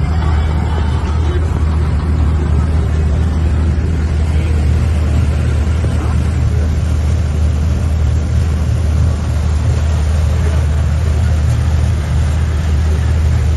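Boat engine running steadily, a loud, even low drone with a wash of noise above it.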